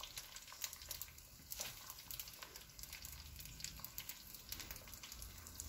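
Faint, irregular crackling of hot oil frying lavash bread at the bottom of a pot, with soft sounds of drained spaghetti being dropped in on top.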